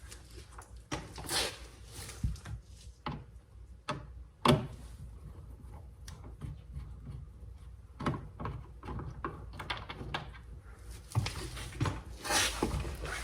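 Scattered clicks, knocks and short scrapes of a 2012 Fiat 500's plastic inner door trim and its fasteners being worked by hand, with one sharp knock about four and a half seconds in.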